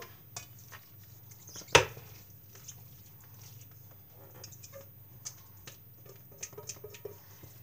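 A single sharp knock of dishware on the counter a little under two seconds in, then faint scattered taps and scrapes of a spoon working a grated potato mixture out of a stainless steel mixing bowl into a ceramic baking dish.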